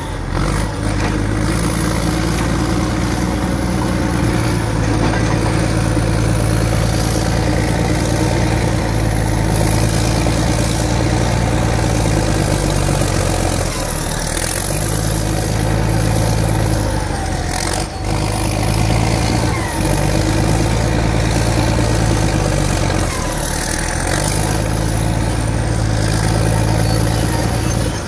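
Caterpillar D8 bulldozer's diesel engine working hard as it pushes dirt and debris, its note dipping briefly several times and recovering, with a high whine rising and falling above it.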